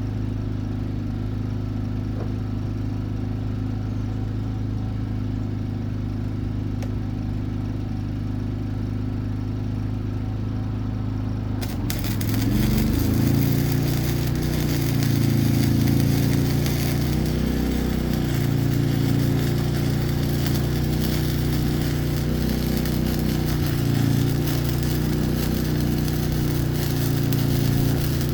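Steady low electrical hum, then about twelve seconds in a wire-feed (MIG) welder's arc strikes and crackles steadily to the end, laying a weld on the billet.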